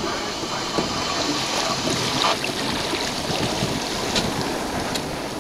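Wind rushing over the microphone and choppy water splashing along the hull of a sailboat under way.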